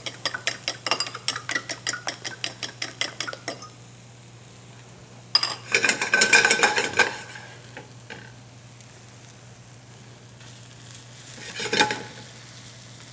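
Fork whisking eggs in a ceramic bowl, quick clicking strokes about five a second for three and a half seconds. Then a carbon steel pan with butter and onions is swirled on the gas burner grate, the metal scraping and sizzling for about two seconds, and near the end a spatula stirs the sizzling onions briefly.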